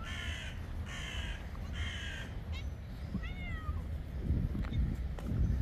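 A bird calling three times, about a second apart, then a cat meowing once about three seconds in, over a steady low rumble.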